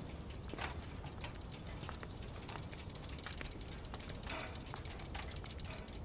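Bicycle rear-hub freewheel ticking rapidly as the bike is wheeled along without pedalling, with a few sharper clicks mixed in.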